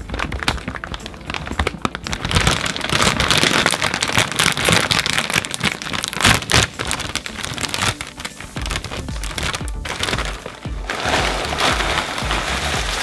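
Background music with a steady beat, over a dense crinkling and pattering from snacks and their packaging being handled. The pattering eases off in the middle and picks up again.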